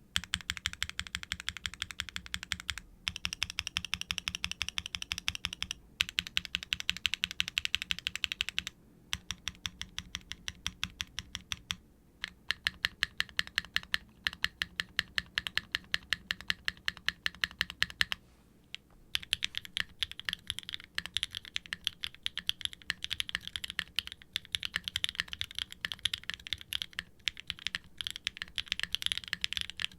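Typing on a Wilba.tech Salvation aluminum mechanical keyboard with Gateron Milky Yellow Pro V3 linear switches, an FR4 plate, no sound dampening and triple-shot ABS keycaps. Runs of quick keystrokes are broken by several short pauses; in the middle the strokes come more slowly and evenly, about four or five a second, and the last third is dense, fast typing.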